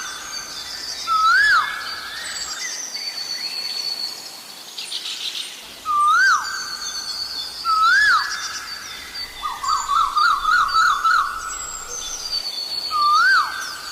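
Asian koel calling: four separate loud, rising-then-sharply-falling notes spaced several seconds apart, with a quick run of rising notes a little after the middle. Other small birds chirp and trill more thinly and higher-pitched throughout.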